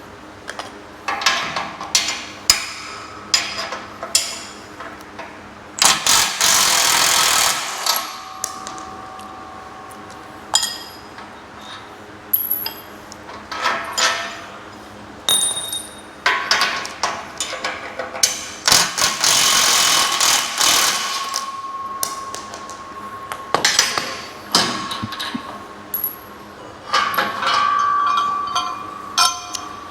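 Metal knocks and clinks of galvanized steel rack parts and bolts being undone and handled, several strikes leaving a ringing tone. Two noisy scraping stretches of about two seconds each come in, one early and one past the middle.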